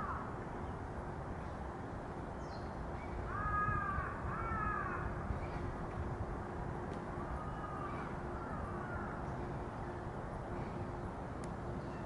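Crows cawing: two clear arched calls about three and a half to five seconds in, and a few fainter ones around eight seconds, over steady background noise with a faint steady hum.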